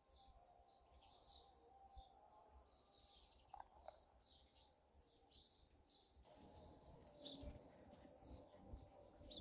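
Faint birdsong: small birds chirping many short high notes, one after another.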